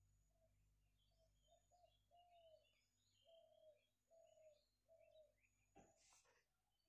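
Faint birdsong: a bird repeating short arched, low call notes about once a second, with smaller birds chirping higher up, and a brief scrape near the end.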